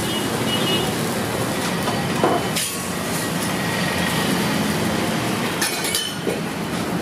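Steel spatula scraping and clinking on a flat iron dosa griddle as an uttapam is flipped, with a few sharp metallic clinks over a steady rushing background noise.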